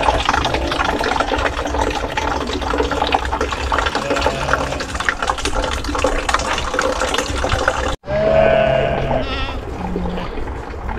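Water running and splashing at a spring where jerry cans are filled, a steady trickle for about eight seconds. After a cut, sheep bleat, one long bleat and then shorter calls.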